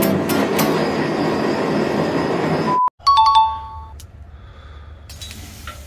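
Subway train rushing through a station, cut off sharply a little under three seconds in. A station chime of bell-like ding-dong notes follows, then a quiet low background.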